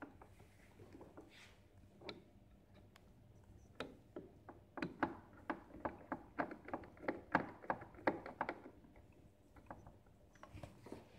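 Hand screwdriver turning screws into a coffee machine's plastic side frame: a run of small, sharp clicks, about three a second, through the middle few seconds, with a few scattered clicks before it.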